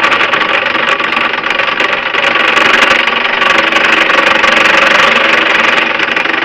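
Electric drill boring a 5/8-inch shaft hole with a new, lubricated twist bit: a loud, harsh cutting screech over the motor's steady whine as the bit bites into the workpiece, a noise that calls for feeding the bit very slowly.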